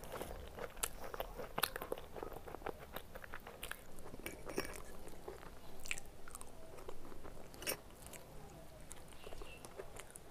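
A person chewing and biting food close to the microphone, with irregular crunches and mouth clicks.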